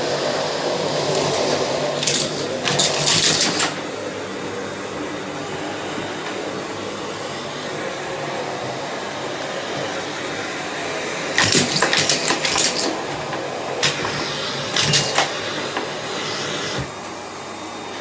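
Miele C3 canister vacuum cleaner running steadily, with bursts of rattling clatter as small plastic Lego bricks are sucked up through the floor head and hose: two dense bursts lasting about a second each, about two seconds in and again past the middle, then a few single clacks.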